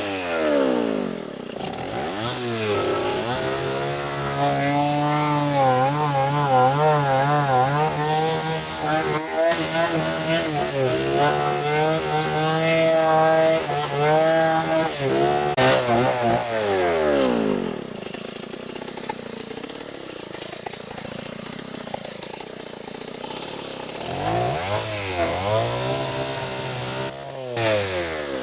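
Chainsaw engine revved up and held at high speed, its pitch wobbling up and down. It drops back to idle about 17 seconds in, then is revved up once more and let back down near the end.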